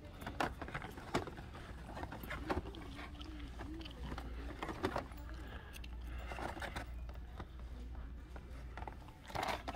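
Handling noise from sorting blister-carded action figures on store display pegs: scattered sharp clicks and taps with rustling of plastic and card, over a steady low hum.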